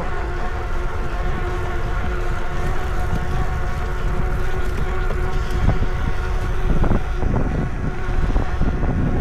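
Wind rumbling over the microphone of a moving e-bike, with a steady whine from the Lectric XP 2.0's electric hub motor holding one pitch at cruising speed.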